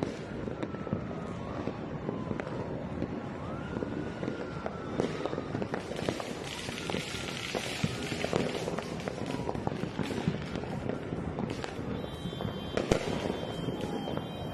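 Fireworks and firecrackers going off all over a city: a constant crackle of many distant bangs, with a few faint whistles of rockets gliding in pitch, and one louder bang near the end.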